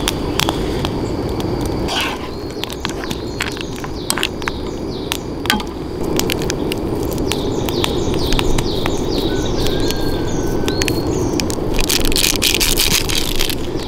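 A pan of nurungji and green onion simmering on a camping gas stove, bubbling with scattered crackles and pops. A plastic wrapper is peeled and crinkled by hand, loudest near the end, and birds chirp in the background.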